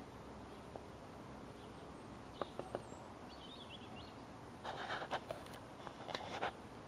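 Faint outdoor background noise with a brief, faint bird chirp near the middle and scattered clicks and rustles, loudest in two short clusters in the second half.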